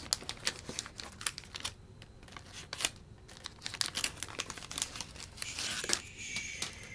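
Wax paper wrapper of a 1989 Donruss baseball card pack crinkling and tearing as it is opened, a run of irregular sharp crackles.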